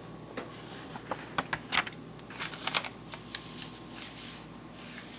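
A string of sharp clicks and soft rustles, the loudest click about two seconds in.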